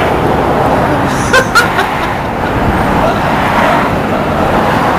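Loud, steady outdoor noise rumble, with a few short clicks about a second and a half in.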